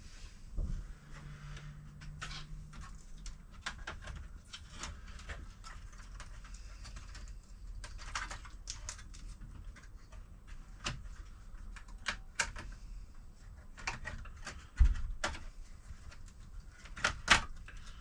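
Scattered clicks and knocks of a laptop and its charger plug being handled on a workbench, with a few louder thumps about a second in, near the end of the middle and twice near the end.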